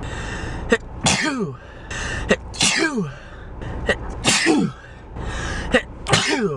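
Four sneezes in quick succession, each a sharp catch of breath followed by a loud burst that falls in pitch, about one and a half seconds apart.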